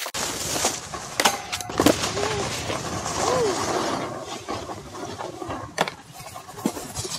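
Snowboard sliding and scraping over packed snow, with a few sharp knocks of the board, one a little before six seconds in.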